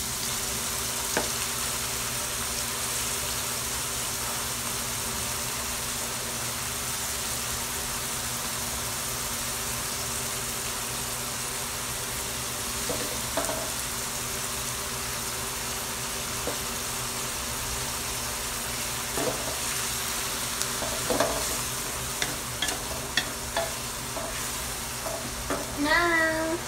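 Onions, garlic and fish sizzling steadily in hot oil in a wok. A wooden spatula stirs and scrapes against the pan, with knocks growing more frequent in the last few seconds. A brief wavering pitched sound comes near the end.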